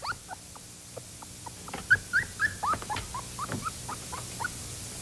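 A young wolf cub whimpering: a run of short, high squeaks, several a second, starting a little under two seconds in and fading out near the end.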